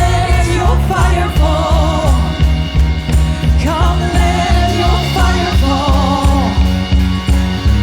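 Live worship band music: a singer's voice holding wavering notes without clear words over a bass line and a steady beat.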